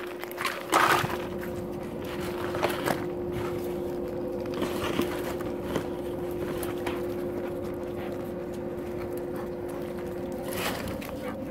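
A steady mechanical hum, with dogs' paws on gravel and a few knocks and scrapes against corrugated plastic drainage pipe; the loudest knock comes about a second in.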